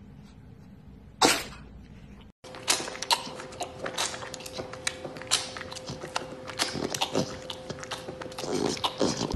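Tiger cub sucking on a milk bottle: a quick, irregular run of wet clicks and smacks over a steady faint hum. Before it, a single short, loud sound about a second in.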